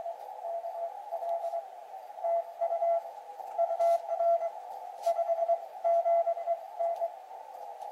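Morse code (CW) received on an HF ham transceiver: a single steady-pitched tone keyed in dots and dashes over a narrow band of hiss from the receiver's CW filter.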